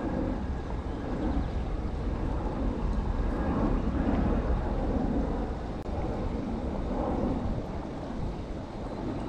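Steady low rumble of wind buffeting the microphone, swelling and easing over a few seconds.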